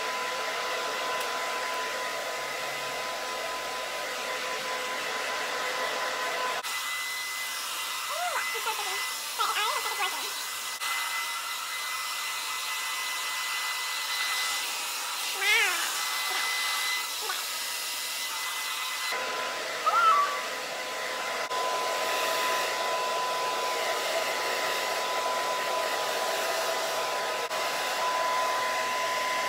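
Handheld hair dryer running steadily on medium heat and high airflow: a constant blowing hiss with a steady whine. Its sound thins out about a quarter of the way in and fills out again about two-thirds through, and a few short rising-and-falling calls sound briefly over it.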